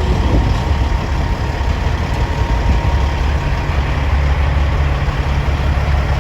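Semi truck's diesel engine idling steadily, a deep, even rumble.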